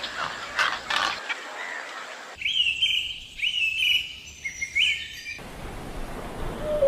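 A bird calling: a run of about four short, clear notes, each hooking upward, over outdoor background noise.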